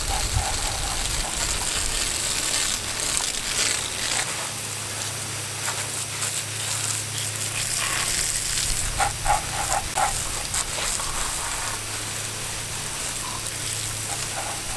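Garden hose spraying water steadily, rinsing the dish soap off a freshly spray-painted rifle to reveal the camouflage pattern.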